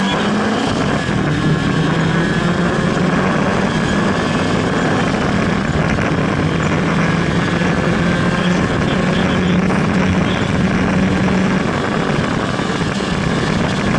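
Fiat Cinquecento rally car's engine running hard at high revs, heard from inside the cabin, its pitch held fairly steady.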